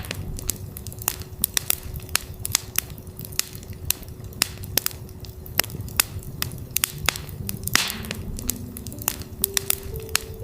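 Campfire crackling, with frequent sharp pops and snaps over a low rumble of burning wood. A steady 369 Hz tone sounds underneath, and soft synth notes step upward near the end.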